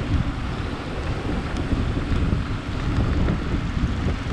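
Wind buffeting the microphone while travelling on the road, a gusty low rumble with no clear engine note.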